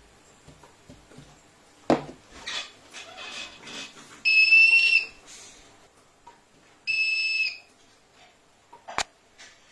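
Buzzer of a homemade transistor metal detector circuit beeping twice, each a steady high tone of about half a second, as a metal DC motor is held near the copper search coil; the beep signals metal detected. A knock about two seconds in and a sharp click near the end come from objects handled on the table.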